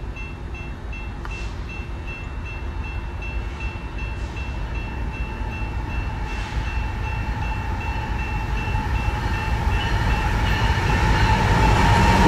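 A diesel-hauled intermodal freight train led by BNSF locomotives approaching, its engine and wheel rumble growing steadily louder. A grade-crossing warning bell rings with an even, rapid repeat throughout.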